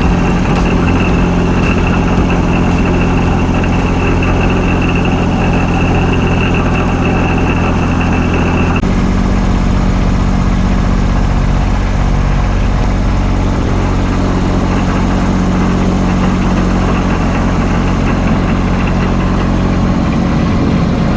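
A motor engine running steadily at idle, with a sudden change in its tone about nine seconds in.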